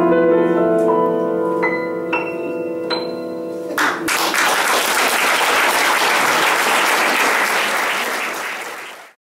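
Grand piano's final chord ringing, with three single high notes struck over it. About four seconds in, audience applause breaks out and carries on until it fades out near the end.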